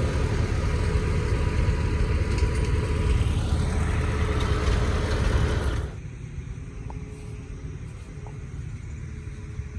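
Tractor engine running, loud and steady, with a rising tone about three seconds in. About six seconds in the sound drops suddenly to a quieter, lower rumble.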